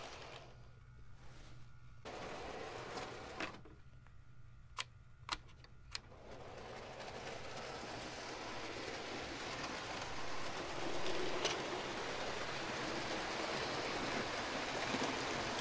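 Hornby OO-gauge Flying Scotsman model locomotive running on the layout's track: a steady whirring of its motor and wheels on the rails, growing louder as it comes close. Before it, a few sharp clicks.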